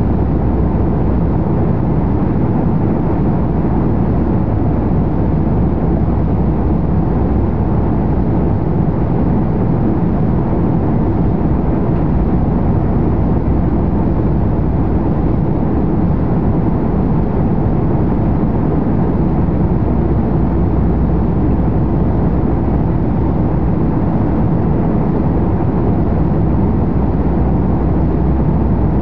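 Steady jet airliner cabin noise in cruise flight: an even rush of airflow and engine noise, strongest in the low rumble, heard from inside the cabin.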